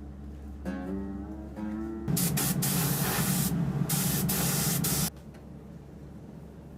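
Hiss of a compressed-air spray, in two bursts that total about three seconds with a short break in the middle, cutting off abruptly. A few plucked guitar notes come just before it.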